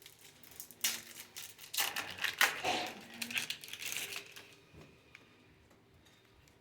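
Foil trading-card booster pack wrapper crinkling as it is torn open. The crackling lasts about three and a half seconds, then stops.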